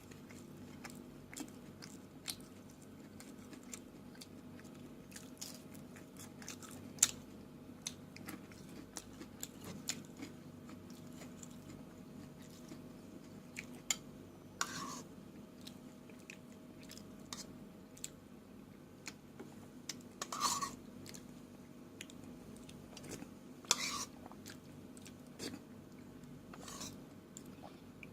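A person chewing and eating food close to the microphone: soft mouth clicks and smacks throughout, with a handful of louder crunches or smacks.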